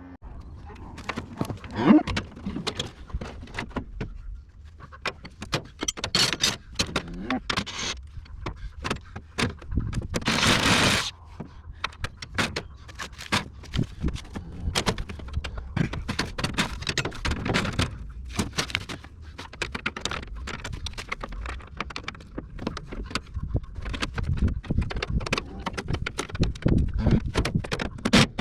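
Wrenches and metal parts working on a bolted steel cover plate of an excavator: scattered clinks, knocks and scrapes of metal on metal. A rushing scrape about a second long comes near the middle.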